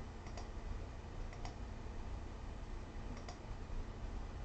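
Computer mouse clicked three times, each a quick double tick as the button is pressed and released, over a faint low steady hum.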